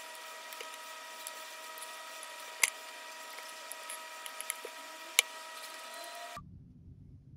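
Metal chopsticks and spoon clinking against a ceramic plate, two sharp clinks and a few faint ticks, over a steady hum and hiss. About six seconds in it cuts abruptly to a low rumble inside a car.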